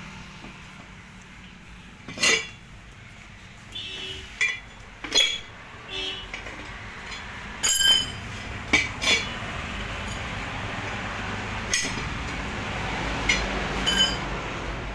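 Metal tools clinking and striking against metal during a concrete trolley tyre repair: about a dozen irregular, sharp knocks, each with a brief metallic ring, over a steady low background noise.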